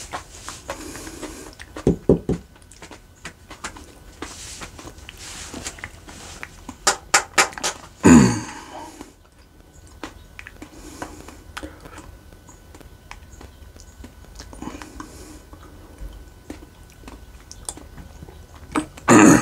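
A man chewing a bite of a chocolate ghost scorpion hot pepper pod, with crunching bites in short clusters and breathing between them. A brief loud vocal sound about eight seconds in, and a loud clearing of the throat at the end as the pepper's heat hits his throat.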